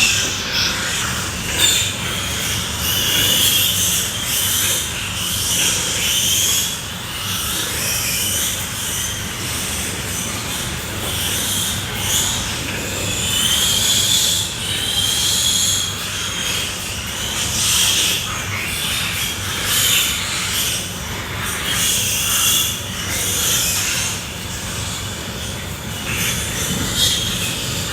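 Pigs squealing, many high squeals overlapping and repeating without a break.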